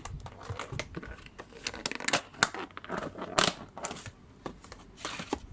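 Homemade slime being squeezed and pulled by hand, giving irregular wet clicks and crackling pops, the loudest about two and three and a half seconds in.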